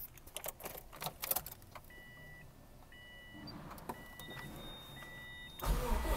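Subaru STI ignition switched on for a cold start: a dashboard chime beeps four times, about once a second, over a faint hum. Near the end the starter motor begins cranking the cold, ethanol-fuelled engine.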